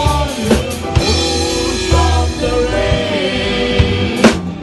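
A live rock band playing with drum kit, electric guitar and keyboards under a male lead vocal, with a loud crash-like hit near the end.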